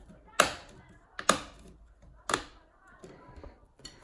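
Plastic diffuser panel being pressed and snapped into a 3D-printed plastic LED frame: three sharp clicks about a second apart, then faint handling.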